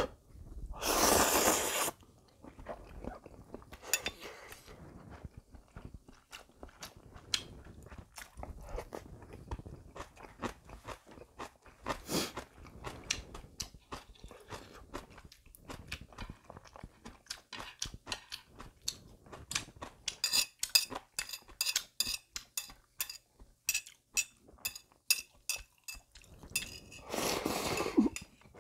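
Close-up eating sounds. A loud slurp of instant ramen noodles about a second in is followed by a long stretch of chewing with crisp crunching, quick and regular in the second half. Near the end comes a slurp of liquid from a small dish.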